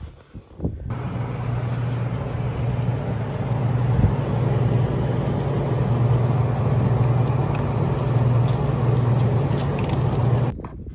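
An engine running steadily with a low hum, starting sharply about a second in and cutting off suddenly near the end.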